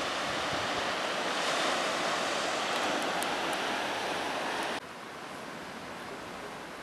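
Steady rushing outdoor noise, then an abrupt drop to a quieter, even hiss about five seconds in.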